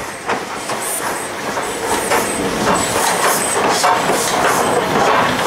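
A train running along the track, with a quick, uneven run of clacks.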